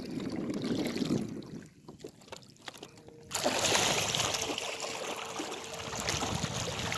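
Wind on the microphone and water noise out on open water. The noise drops for a moment, with a few small knocks, then comes back suddenly and stronger about three seconds in.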